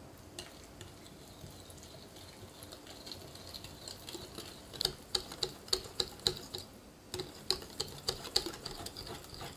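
Wire whisk beating waffle batter in a glass mixing bowl. The whisking is soft at first; from about five seconds in, the tines tick against the glass at about three ticks a second.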